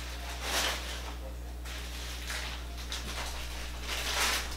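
Rustling and handling of packaged items being rummaged through, with two louder bursts about half a second in and near the end, over a steady low hum.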